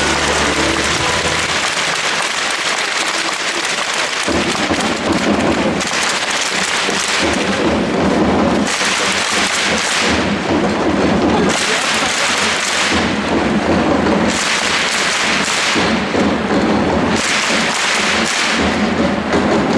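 A large stadium crowd of football supporters, loud, rising in surges of chanting and cheering every second or two.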